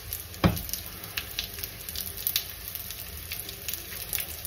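Chickpea-flour batter frying in olive oil in a pan, sizzling with scattered small crackles as it starts to cook. One dull knock about half a second in.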